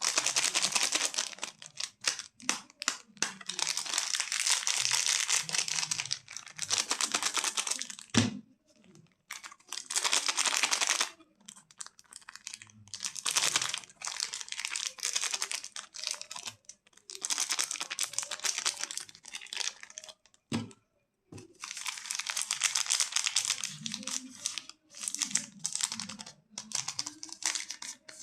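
Candy and chocolate wrappers being crinkled and torn open, in repeated bursts of one to three seconds with short pauses between them. Two sharp clicks stand out, one about a third of the way in and one about two-thirds of the way in.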